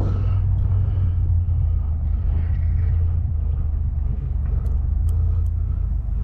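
Motor vehicle engine running steadily, a loud, even low drone.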